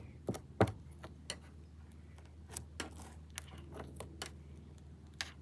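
Glue slime being stirred with a paintbrush: faint, irregular sticky clicks and pops, a few each second, the loudest in the first second.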